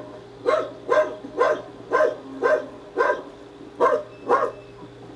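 A dog barking repeatedly, eight barks at about two a second, with a slightly longer pause before the last two.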